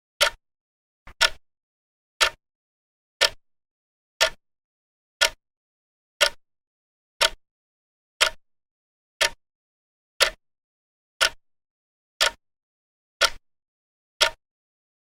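Vintage clock ticking steadily: one sharp tick about every second, each with a brief ringing note.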